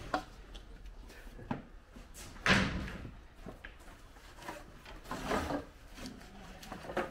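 Wooden boards and offcuts knocking and clattering as they are picked up and gathered off a shop floor: a few separate knocks, the loudest about two and a half seconds in, and a small cluster of them around five seconds.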